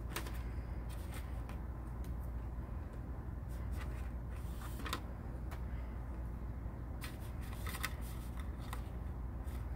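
Gloved hands handling a plastic catheter kit tray and its paper wrapping: scattered light rustles and clicks, busiest around the middle and again near the end, over a steady low hum.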